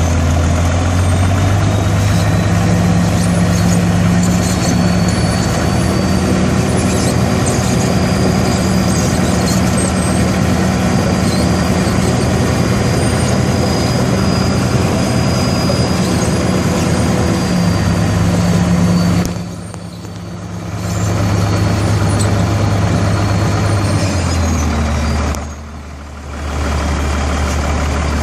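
Bulldozer's diesel engine running steadily, with a faint high whine above the low engine note. The engine settles to a lower note toward the end, and the sound dips briefly twice in the last third.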